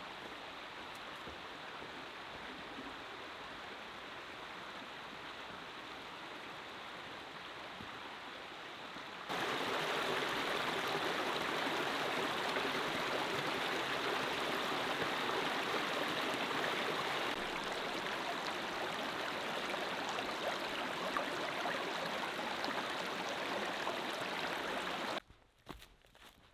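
Small rocky forest stream flowing over stones, a steady rush of water. It steps up louder about a third of the way in and cuts off suddenly near the end.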